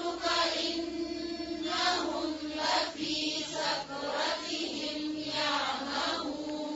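Several voices chanting a Quranic verse together in unison, softer than the lead reciter, on a long held pitch: a tajweed class repeating the verse after the teacher.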